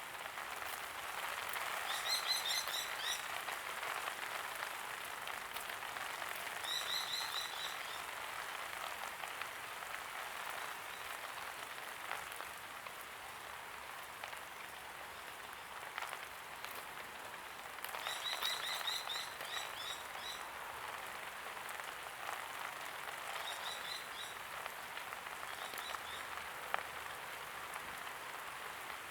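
Steady light rain. Several times, an animal calls over it in short runs of rapid, high chirps lasting about a second each.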